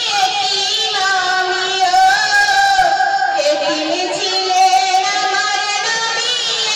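A woman singing into a handheld microphone, her voice amplified, in long held notes that waver in pitch.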